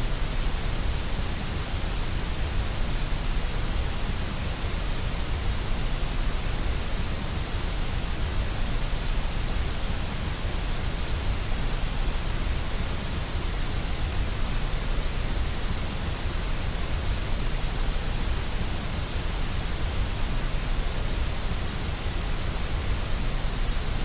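Steady white noise: an even, unchanging hiss.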